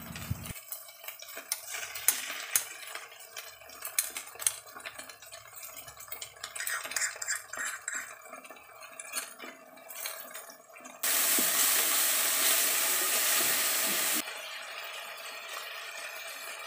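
Wooden spatula stirring and scraping onions frying in oil in a steel wok, with many sharp clicks against the pan over a faint sizzle. About eleven seconds in, a loud steady sizzle starts suddenly and cuts off about three seconds later, leaving a fainter sizzle.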